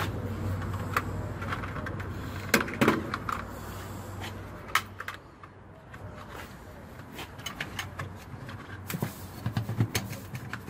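Scattered sharp clicks and knocks of parts and covers being handled in an excavator's open service compartment, over a low hum that dies away over the first few seconds.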